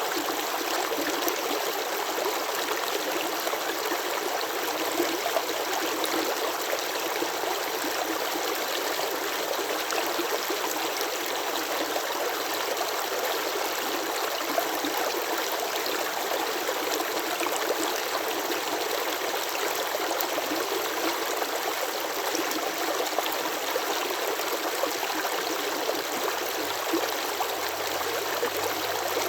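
Water running steadily, an even splashing flow with no pauses or changes and almost no deep rumble.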